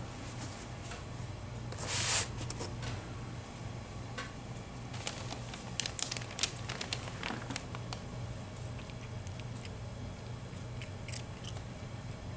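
A cat eating dry treats off a corrugated cardboard scratcher: scattered small crunches and clicks, with a short papery rustle about two seconds in, over a steady low hum.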